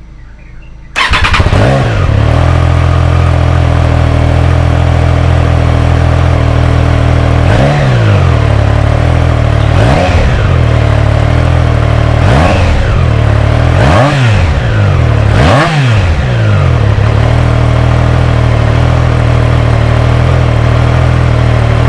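Triumph Tiger Sport 660's 660cc inline-three engine starting about a second in and idling, revved five times in quick blips in the middle, then settling back to idle.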